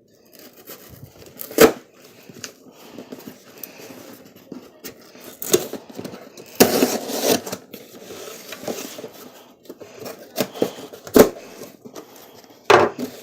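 Hands opening a mail package: scattered scraping, rustling and sharp clicks, with a longer tearing noise about seven seconds in.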